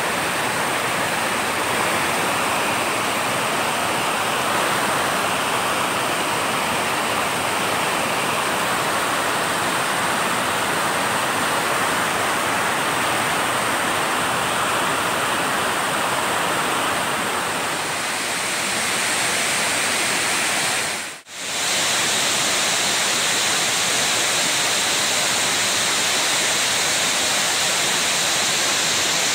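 Waterfall and fast, swollen stream water rushing over rocks in a steady, loud rush. About two-thirds of the way through, the sound drops out for a moment and comes back slightly brighter.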